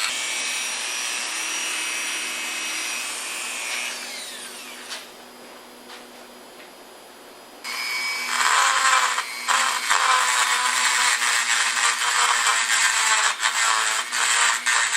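Power grinding tool shaving metal from the inside edges of a driveshaft yoke so oversized U-joint caps will fit. It runs steadily, is let off about four seconds in and winds down in pitch, then starts grinding again, louder, about seven and a half seconds in.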